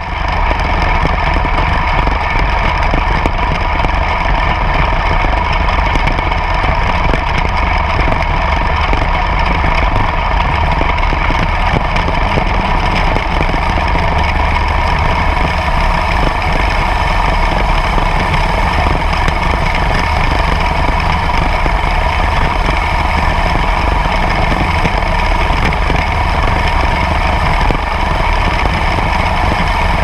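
Small plot combine harvesting soybeans, its engine and threshing machinery running steadily and heard up close from on the machine, with a steady whine among the noise.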